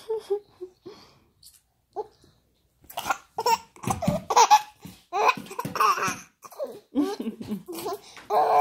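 Toddler laughing hard in repeated short bursts of belly laughter, picking up about three seconds in after a few brief quieter sounds.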